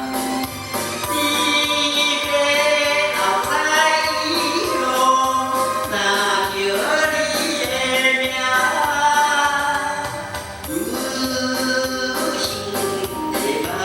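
A man singing a song over backing music with a steady beat, played through a classroom sound system under test.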